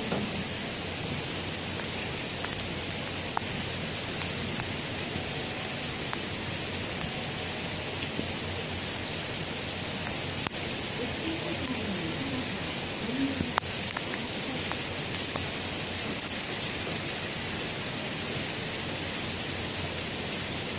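Torrential rain pouring down in a steady, dense hiss that does not let up.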